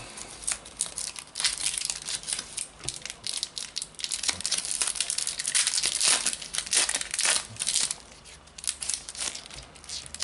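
A Panini Adrenalyn XL trading card packet's shiny foil wrapper being torn open and crinkled by hand: a dense run of crackles that thins out near the end.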